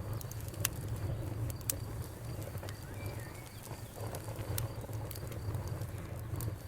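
Campfire crackling: scattered sharp pops and snaps of burning wood over a steady low rumble.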